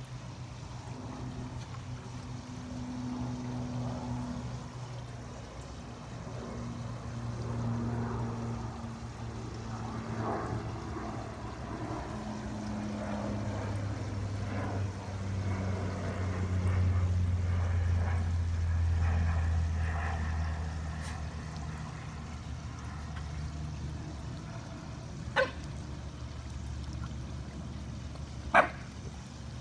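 A low motor drone that slowly falls in pitch and swells in the middle, over faint trickling water; two short sharp sounds near the end.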